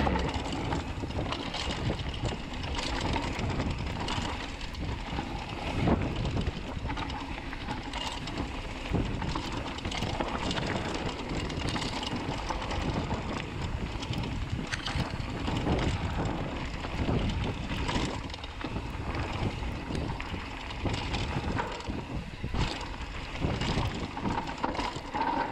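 Mountain bike riding down a dirt singletrack: tyres rolling over dirt and loose rock, with the bike rattling and knocking over bumps, one louder knock about six seconds in, and wind rushing on the microphone.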